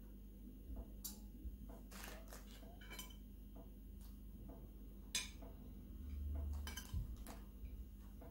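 Metal spoon clinking against a ceramic plate of rice while scooping: several short, sharp clinks, the loudest about five seconds in, with a dull low bump a little after six seconds.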